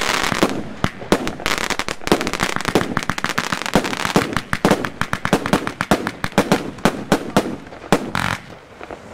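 Lesli Bloody Mirage fireworks going off: a rapid, dense string of cracks and bangs that thins out near the end.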